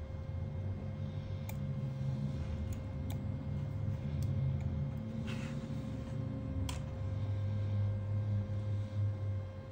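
A few light clicks and a short scrape of a spudger working against the internal parts of an opened Google Pixel 3, over a steady low hum.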